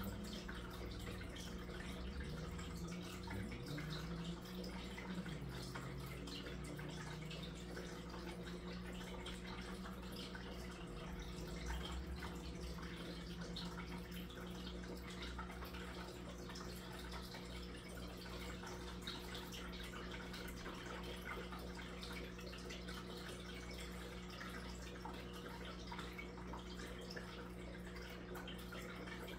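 Aquarium filter trickling and splashing water at the tank's surface, with a steady low hum underneath.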